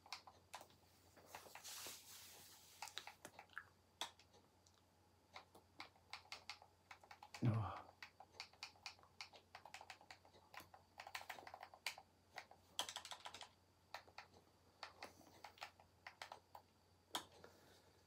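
Faint, irregular clicks of keys or buttons being pressed as a name is typed in, with one louder bump about seven and a half seconds in.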